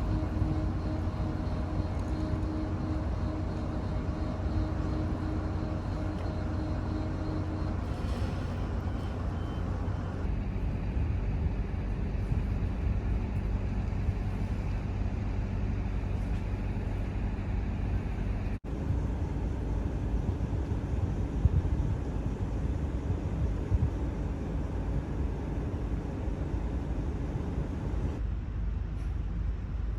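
Steady low engine rumble with a faint hum, changing character abruptly a few times.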